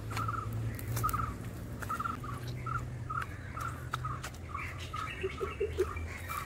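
A bird calling the same short note over and over, about two a second, with a few fainter calls from other birds joining near the end.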